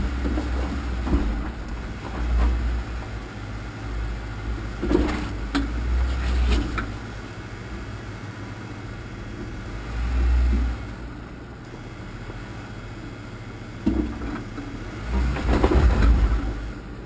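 Off-road vehicle engine running at low speed while it crawls over a rocky trail, with knocks and rattles as the wheels go over rocks. It is loudest near the end.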